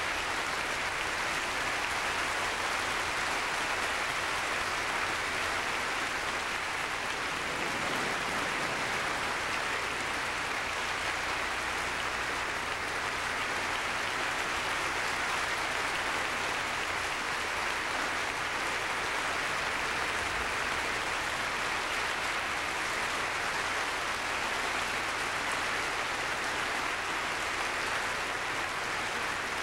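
Concert hall audience applauding, a dense, steady clapping that holds an even level throughout.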